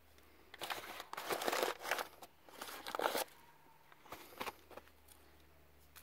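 Crumpled newspaper rustling and crinkling in several bursts over the first three seconds, with a short burst again near the end, as wads stuffed down into the open engine cylinders are handled.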